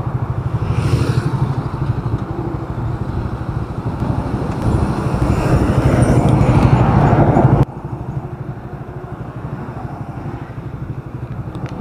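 Motorcycle engine idling, growing somewhat louder. About seven and a half seconds in it drops abruptly to a quieter, steady running sound.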